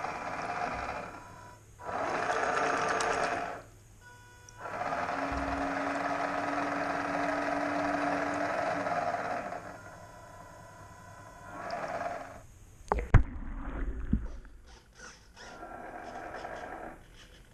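Model paddle tug's motor-driven paddle wheels churning bathtub water, running in several bursts of a few seconds each with pauses between. A few sharp knocks about thirteen seconds in are the loudest sounds.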